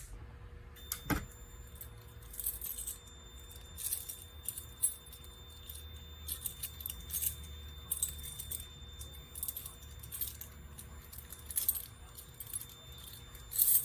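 A fire alarm pull station is pulled with a sharp click about a second in, and a steady high-pitched electronic tone from the alarm panel sounds on from then on. Scattered jingling, metallic rattles come and go over the tone.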